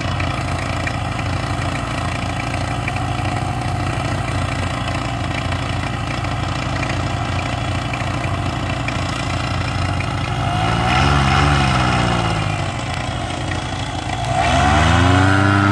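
Backpack paramotor engine and propeller idling steadily, revved up and back down once about eleven seconds in. Near the end the throttle opens to high power, rising in pitch and holding, for the takeoff run.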